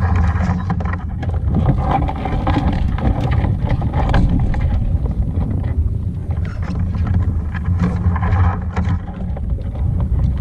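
Wind buffeting the microphone with a steady low rumble, over water splashing and small knocks against a kayak.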